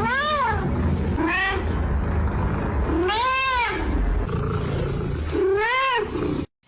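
A domestic cat meowing four times, each call rising then falling in pitch; the third is the longest. A steady low rumble and hiss run underneath, and all sound cuts off suddenly near the end.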